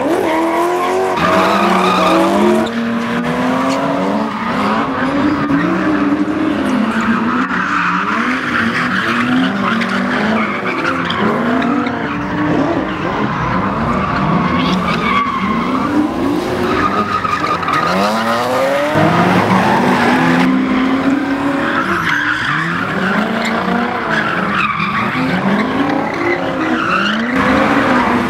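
Drift cars' engines revving up and down over and over as the cars slide sideways, with tyres skidding and squealing.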